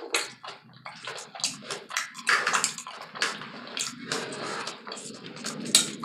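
Close-miked wet chewing and mouth sounds of a person eating a taco salad, in quick irregular smacks and crackles.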